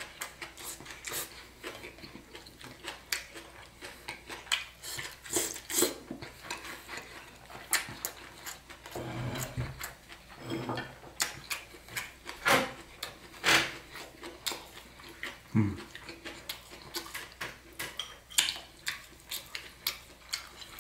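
Close-up eating sounds: utensils clicking against a dish and food being chewed, a string of short sharp clicks with a few duller thuds.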